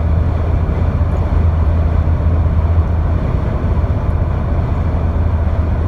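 Steady low rumbling noise with a constant deep hum, unchanging throughout.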